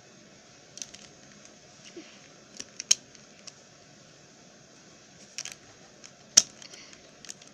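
Plastic Rubik's cube being turned by hand: scattered clicks and clacks as its layers are twisted, with two sharper, louder clacks about three seconds and six and a half seconds in.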